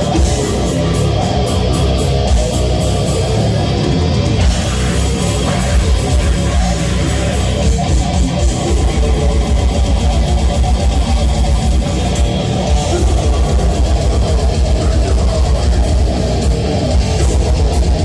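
Heavy metal band playing live at club volume: distorted electric guitars, bass and drums, settling into a fast, steady beat about six seconds in.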